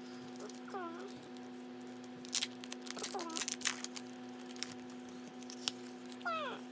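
Cellophane wrapping on a mini photo card pack crinkling as it is handled, loudest in a cluster of crackles a couple of seconds in. A cat meows three short times, each call falling in pitch, over a steady electrical hum.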